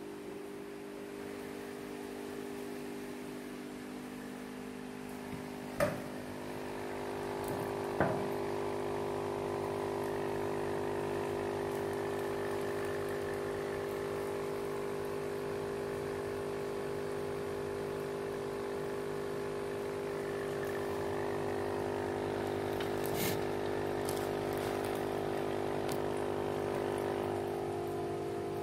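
Small aquarium pump humming steadily, with water trickling in the tank. Two sharp clicks come about six and eight seconds in.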